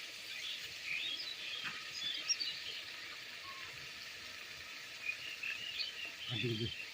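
Small birds chirping, many short quick calls overlapping. A brief low voice is heard near the end.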